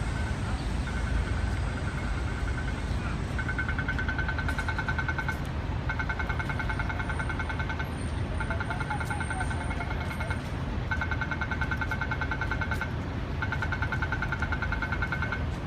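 Steady low rumble of city street traffic. Over it an electronic warning buzzer sounds in rapid-pulsing bursts about a second and a half long, repeating roughly every two seconds.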